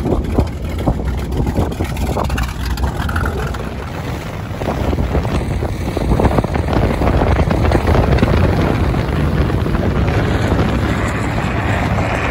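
Wind buffeting the microphone and water rushing past a moving pontoon boat, a steady rushing noise that grows louder about halfway through.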